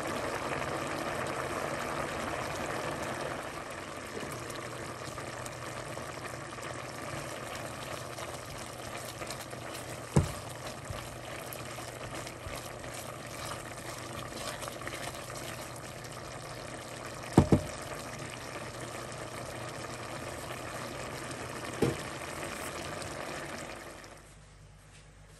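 Water bubbling steadily in a pot of boiling egg noodles that has just been taken off the heat, with a spatula stirring and knocking sharply against the pot three times, once with a quick double knock. The bubbling cuts off about a second before the end.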